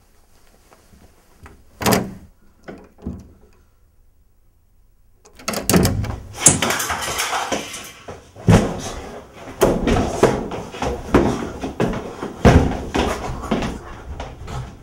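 A door bangs shut about two seconds in, followed by two lighter knocks. Then comes a long, loud run of bangs and thuds with a clattering noise between them, in a small tiled room.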